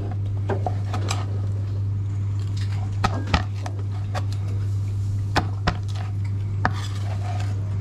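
A kitchen knife slicing grilled meat on a plastic cutting board, with irregular sharp taps as the blade hits the board, over a steady low hum.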